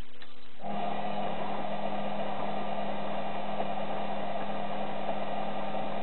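Washing machine drum motor running steadily with a hum and whine for about five seconds, switching on abruptly under a second in and cutting off at the end, turning the drum during the heating stage of a 40°C cotton wash.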